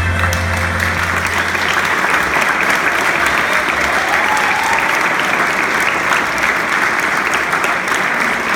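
Audience applauding, with a low note from the closing music fading out about two seconds in.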